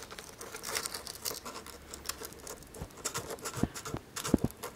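Hands working over a sculpture model, fingers scraping and tapping its surface: an uneven run of small scratches and light clicks, with a few firmer taps in the second half.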